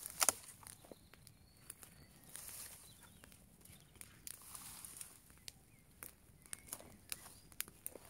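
Brushwood campfire crackling with irregular sharp pops and snaps, the loudest a quick cluster just after the start, and two brief soft rushing hisses in between.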